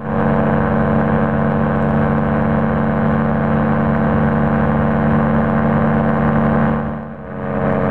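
Rotax 503 two-stroke twin engine of an Excalibur light aircraft running steadily in flight. Its level dips briefly about seven seconds in, then comes back.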